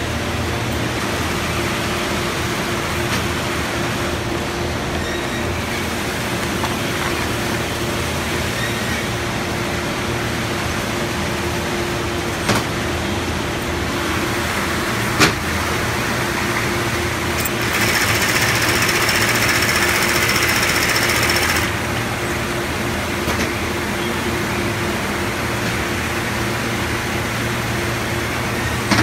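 Steady factory machinery hum with a low drone. About two-thirds of the way in, a Keestar LoopSEW65 automatic FIBC loop attaching sewing machine runs for about four seconds, louder and brighter than the hum. Two sharp clicks come a few seconds before it.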